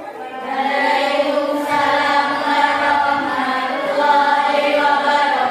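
A group of voices chanting in unison, each pitch held for a long stretch.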